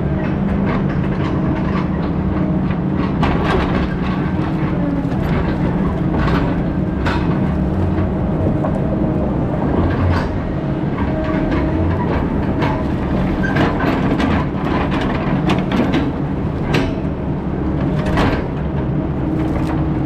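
Heavy diesel machinery running steadily, with frequent short metallic clanks and knocks over the engine sound.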